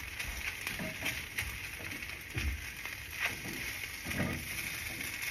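Scrambled eggs sizzling softly in a nonstick frying pan while a silicone spatula stirs and scrapes them, with a few soft knocks of the spatula against the pan.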